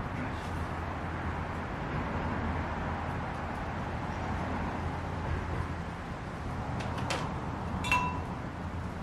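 Wood fire burning with a steady hiss and small crackles. Two light metallic clinks ring out briefly about seven and eight seconds in.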